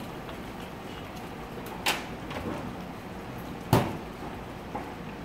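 Two sharp knocks about two seconds apart, the second louder, with a faint third one near the end, over steady background noise.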